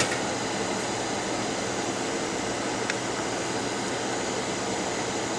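Hot-air rework station blowing with a steady hiss, heating an iPhone logic board for component removal. A sharp click right at the start and a faint tick about three seconds in.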